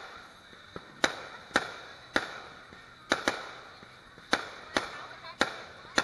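Aerial fireworks bursting in quick succession: about nine sharp bangs at uneven intervals of roughly half a second to a second, each trailing off in an echo.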